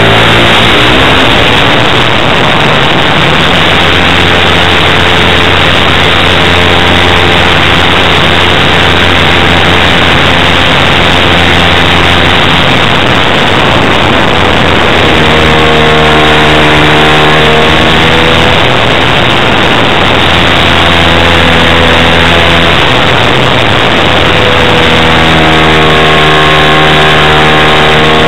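Loud single-cylinder O.S. FS-120 Surpass III four-stroke glow engine, pumped, turning a 16x6 propeller, heard up close from a camera on the model aircraft. The engine runs hard through the flight, its pitch rising and falling a few times as the model manoeuvres.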